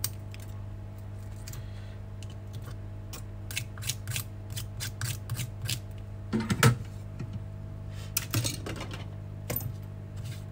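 Small hand tools clicking and tapping against loose broken glass fragments on a stripped iPhone X frame, in irregular bursts with a couple of denser clusters, over a steady low electrical hum.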